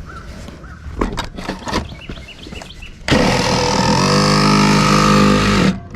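Cordless reciprocating saw with a Diablo blade cutting through a drainage culvert pipe: the motor starts about three seconds in, speeds up to a higher pitch and holds, then stops suddenly near the end. Before it, a couple of knocks and faint bird chirps.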